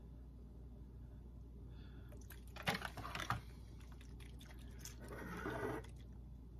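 Faint clicks and a soft rustle of hands handling a small plastic acid dropper bottle from a gold-testing kit, a cluster of small clicks about halfway through and a brief rustle near the end, over a steady low room hum.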